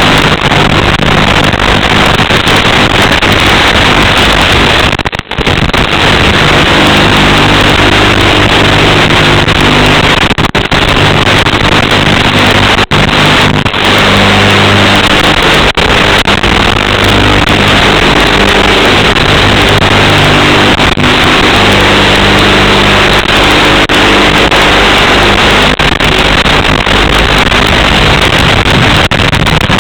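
Micro FPV quadcopter's motors and propellers buzzing, their pitch shifting up and down with throttle under loud steady hiss, with a few brief dropouts.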